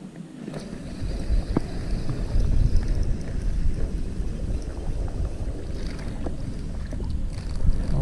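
Wind buffeting the microphone: a steady low rumble that picks up about half a second in, with a few faint clicks over it.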